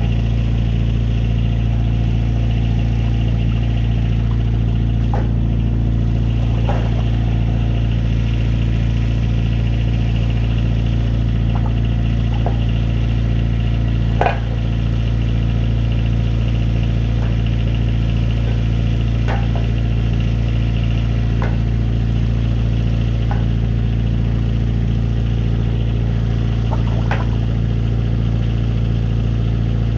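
Drain-jetting machine's engine and high-pressure pump running at a steady drone while the jetting hose works in a blocked sewer line. A few faint clicks and one sharper knock about halfway through.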